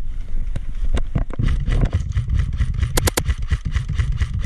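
Footsteps on dry dirt under a heavy rumble of wind and handling noise on a body-worn GoPro's microphone. About three seconds in comes a quick run of four sharp clicks.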